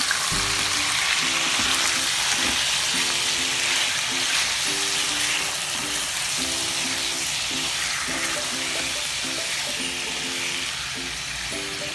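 Chicken pieces frying in hot oil in a kadai on high flame, a loud sizzle that eases off gradually as the raw meat starts to sear, with the pieces turned by a wooden spatula. Background music plays softly underneath.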